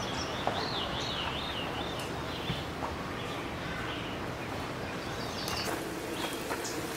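Small birds chirping and calling in woodland over a steady background hiss, with a wavering high-pitched call about half a second in.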